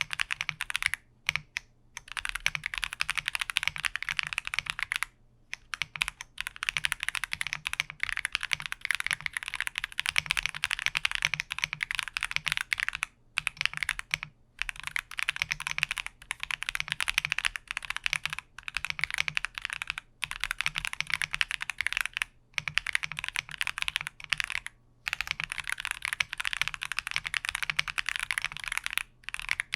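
Steady fast typing on a Mod007 V3 VIA mechanical keyboard fitted with Akko V3 Cream Black Pro switches and Cream MDA keycaps: a dense run of keystroke clicks, broken by brief pauses every few seconds.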